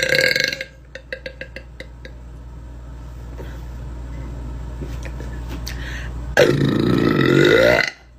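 A young woman burping loudly twice. The tail of one long burp ends about half a second in, a few faint clicks follow, then a second burp of about a second and a half comes near the end, its pitch dipping and rising again.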